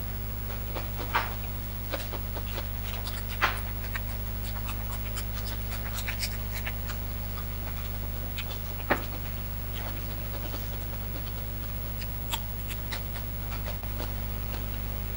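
Close-miked eating sounds: chewing, mouth smacks and small clicks of hands picking at food, with a few sharper clicks about a second in, around three and a half seconds in and near nine seconds. A steady low hum runs underneath.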